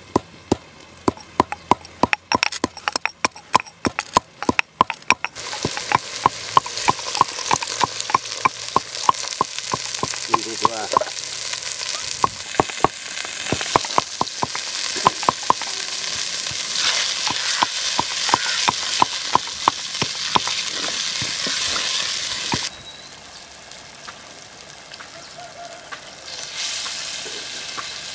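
A pestle pounding in a mortar, a steady run of knocks about three a second. From about five seconds in, hot oil sizzles loudly in a clay pot as ground spices go in. The sizzle drops away suddenly near the end.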